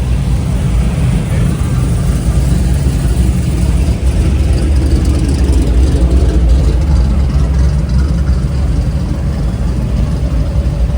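Car engines running at idle, a steady low rumble with no revving.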